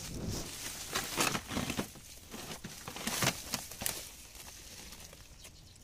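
Dry grass and leafy vines rustling and crackling as a hand pushes through them close to the microphone. There are several brushes in the first four seconds, then it quietens.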